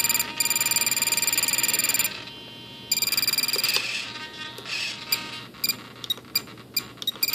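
Radio-control wing servo whining with a steady high buzz, stopping after about two seconds and starting again about a second later: the servo is straining under load rather than resting. Several short ticks from the Spektrum DX18 transmitter's menu controls follow as flap settings are changed.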